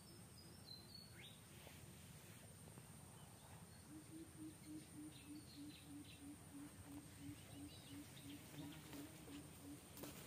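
Faint forest ambience: a few brief high bird chirps in the first second or so, a steady high whine underneath, and from about four seconds in a soft low pulsing at about four beats a second.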